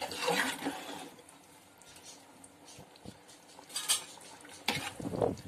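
A spoon scraping and clattering against a metal cooking pot as thick chicken masala is stirred, in short spells with a quieter stretch in the middle.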